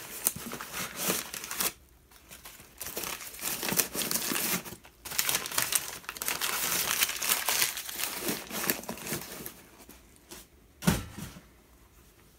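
Plastic wrapping crinkling and rustling in bursts as a car electronics module is unwrapped and handled, followed by a single thump about eleven seconds in.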